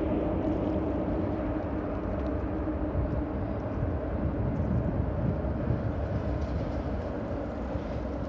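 Steady hum and deep rumble of traffic crossing the steel deck of the 25 de Abril suspension bridge overhead, a constant droning tone over the low rumble.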